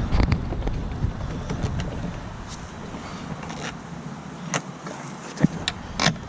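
Scattered, irregular sharp clicks and knocks of a hand ratchet and metal parts being worked on a snow-blade bolt, over a steady low rumble that drops away about five seconds in.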